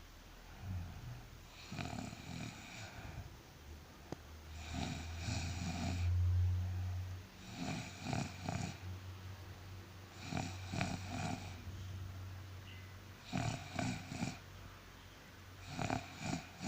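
A person snoring with a fluttering, rattling sound: six snores, each about a second long, one every two and a half to three seconds. A low steady hum runs beneath from about four seconds in.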